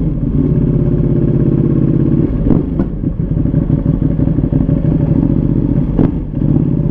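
Ducati Panigale V2's 955 cc L-twin running at low speed through an open aftermarket Mivv exhaust with its catalytic converters removed. A steady throttle note eases off for a few seconds, broken by a few sharp clicks, then picks up again near the end.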